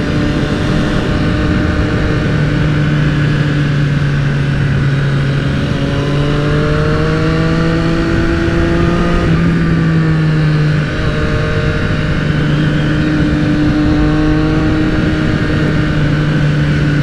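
Triumph motorcycle engine running under way, with a steady rush of wind noise. About six seconds in the revs climb steadily for three seconds, then drop back and settle to a steady note.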